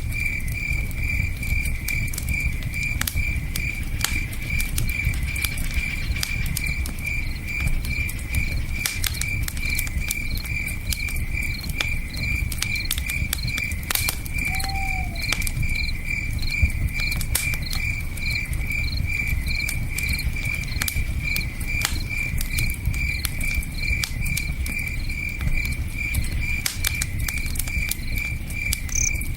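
Campfire crackling with scattered sharp pops, over the low steady rush of a river. Crickets chirp throughout in a fast, even, high-pitched pulse.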